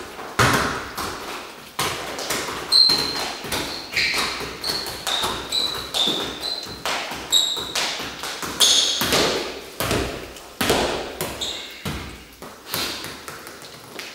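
Soccer balls being juggled and kicked on a wooden floor: irregular thuds and taps of foot touches and ball bounces, roughly one or two a second, echoing in the hall. Several short high squeaks come in between.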